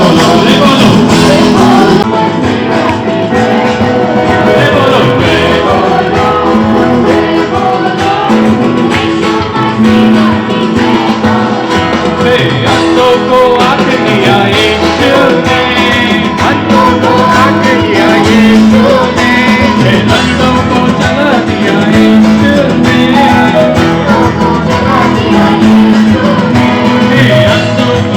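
Music with singing over guitar accompaniment.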